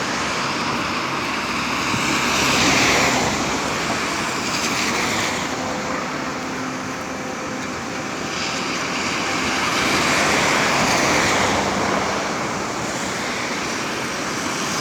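Rain-swollen creek rushing in flood, a steady loud roar of water that swells twice.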